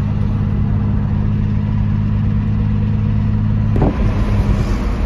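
Car on the move, heard from inside the cabin: a steady low engine and road drone. A little under four seconds in the sound changes abruptly and the drone gives way to rougher road and wind noise.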